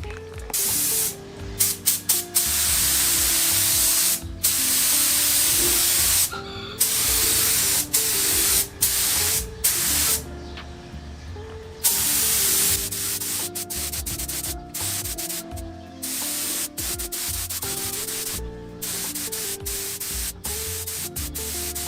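Clear coat being sprayed onto freshly painted motorcycle parts: a series of hissing spray passes, each a second to three seconds long, that start and stop abruptly with short pauses between.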